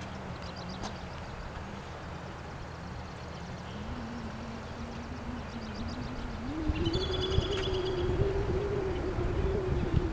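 A vehicle passing, its engine hum rising in pitch and getting louder about two-thirds of the way in, with wind buffeting the microphone. Short high bird trills sound a few times.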